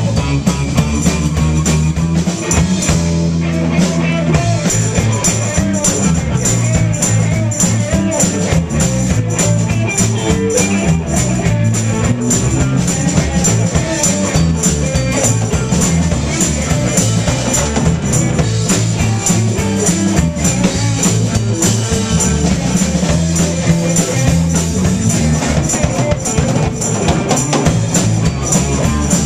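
Live blues band playing an instrumental passage: electric guitars, bass and drum kit, with a tambourine shaken and struck in time.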